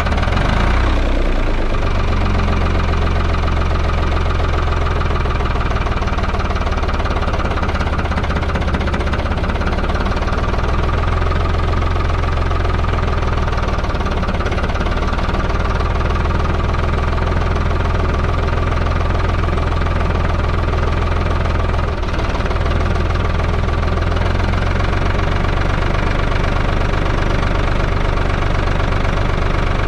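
Ford 3000 tractor's three-cylinder engine running steadily as the tractor is driven, a loud, even rumble.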